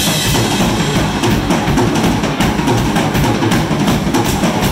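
Live rock band playing an up-tempo dance number at full volume, with drum kit, electric guitars and an amplified contrabass balalaika on a steady driving beat.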